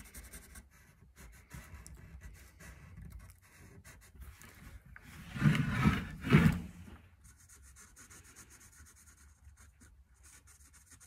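Sharpie marker being rubbed over the lettering on a wooden hockey stick shaft: faint, continuous scratchy strokes. A little past halfway come two louder thumps of handling noise, the second one short.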